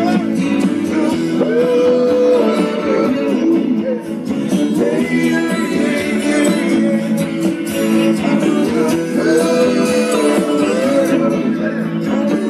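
Rock band playing live: a male lead vocal sung over electric guitars, bass guitar and drums.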